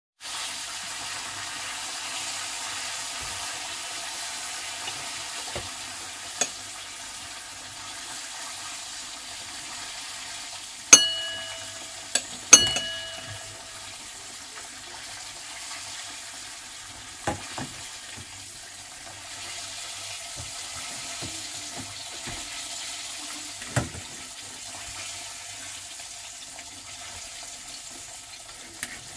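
Chicken frying in hot oil, a steady sizzle. Several sharp clinks of utensils on metal come through it, the loudest two ringing briefly about halfway through.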